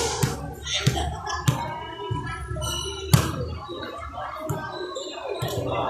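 Sharp thuds of a volleyball being bounced or struck, a few in a row at the start and one loudest about three seconds in, over the murmur of people talking around the court.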